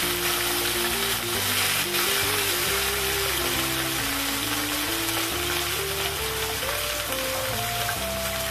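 Raw chicken pieces sizzling in hot oil in a stainless-steel kadai, stirred during the frying. A slow ballad melody plays in the background music.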